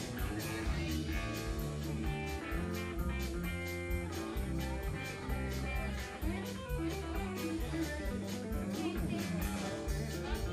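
Band music led by an electric guitar played in a chicken-pickin' country style, with a steady beat.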